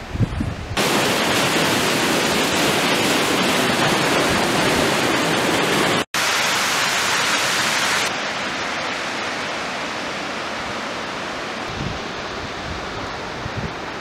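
Steady rush of falling water from a waterfall cascade, starting about a second in. It breaks off for an instant near the middle and turns softer and duller after about eight seconds.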